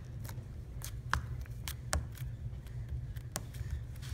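Green slime being squeezed and kneaded in a hand, giving off irregular small clicks and pops, the sharpest about one and two seconds in, over a low handling rumble.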